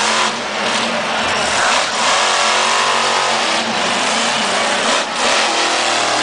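Max D (Maximum Destruction) monster truck's supercharged V8 revving hard at high throttle while the truck spins on the dirt. The engine note drops back briefly three times, about a third of a second in, near two seconds and near five seconds, then climbs again.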